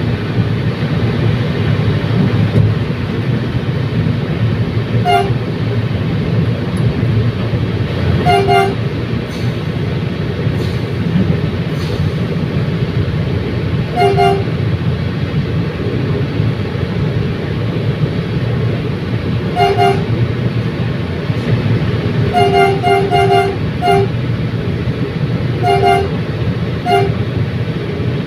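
Commuter train running with a steady low rumble, its horn sounding short toots again and again. About ten brief blasts come singly every few seconds, with a quick cluster of four a little after the twenty-second mark.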